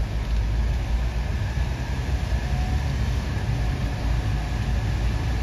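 Kei van driving slowly, heard from inside the cabin: a steady low rumble of engine and tyres rolling over the deck of a narrow suspension bridge.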